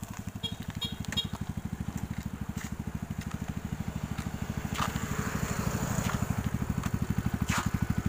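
Small single-cylinder mini motorcycle engine idling with an even, rapid pulse that grows a little louder near the end, with a few light clicks and knocks over it.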